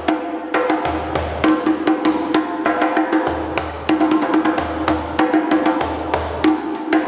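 Djembe played with bare hands: a fast, steady rhythm of sharp slaps and ringing tones, with deep bass strokes recurring about once a second.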